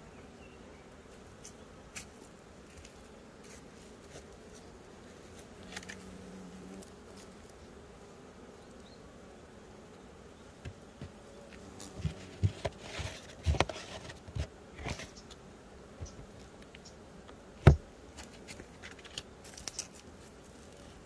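Honeybees buzzing around the hive, with a bee's buzz briefly passing close at the start and again about a quarter of the way in. From about halfway on there is a scatter of sharp taps and thumps, the loudest about three-quarters of the way in.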